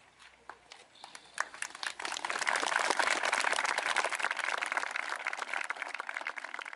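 Outdoor crowd applauding: a few scattered claps at first, swelling into full, dense applause about two seconds in and easing slightly near the end.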